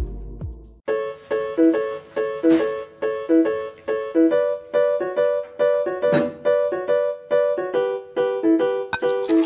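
Background music. The previous song dies away in the first second, then a light, upbeat melody of short, evenly paced keyboard-like notes begins, about three notes a second.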